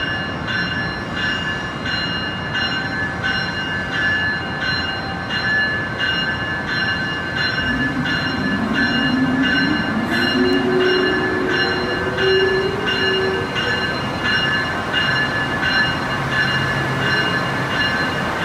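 Amtrak ACS-64 electric locomotive's bell ringing steadily, about three strokes every two seconds, as it starts to pull out. From about eight seconds in, a rising whine from its traction drive as the train accelerates.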